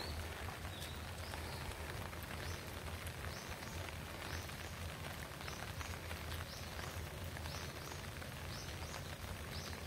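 Steady patter of light rain, with short high chirps repeating every second or so through it.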